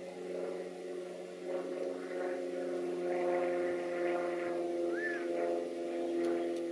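Steady mechanical drone of a distant engine or motor, several held tones at once, growing a little louder about a second and a half in. A single short chirp rises and falls about five seconds in.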